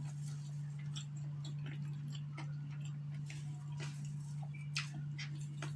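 A person chewing a mouthful of food close to the microphone: small irregular mouth clicks and smacks, over a steady low hum.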